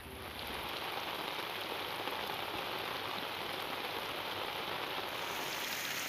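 Heavy rain pouring down, a steady hiss of drops striking standing water, growing louder within the first second.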